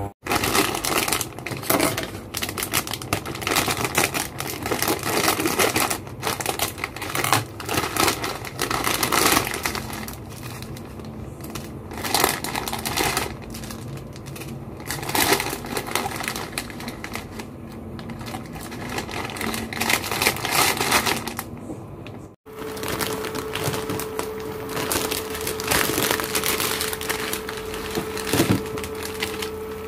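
Plastic instant-noodle packet and seasoning sachet crinkling and rustling as they are torn open and handled by hand, in irregular loud bursts. Near the end it gives way to water at a rolling boil in a pot on an induction cooker, with a steady hum under it.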